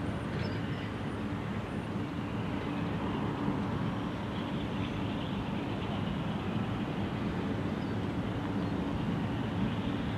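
Freight cars loaded with waste containers rolling past on the rails: a steady rumble of steel wheels on track.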